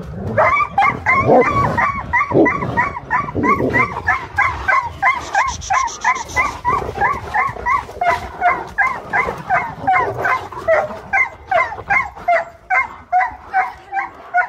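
A dog yelping over and over in a dog fight, about three short high yelps a second without a break. Rougher low sound runs under the yelps for the first few seconds.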